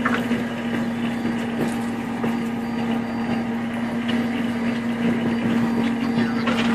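Crab-fishing boat's engine running steadily, a constant hum with no change in pace.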